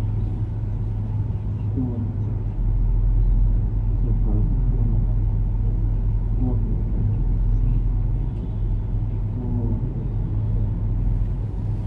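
Steady low hum and rumble, with faint indistinct voices now and then.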